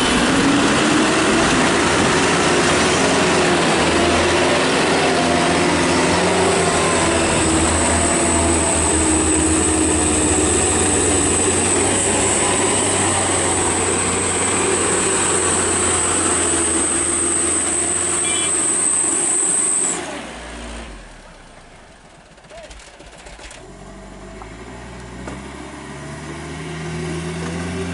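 Mitsubishi Colt Diesel truck's diesel engine running hard under load on a hill climb, with a steady high whine over it. About twenty seconds in the sound drops away sharply, then the engine picks up again near the end with rising pitch.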